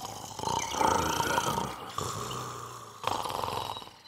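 Cartoon bears snoring: a run of rough snores, each about a second long, one after another.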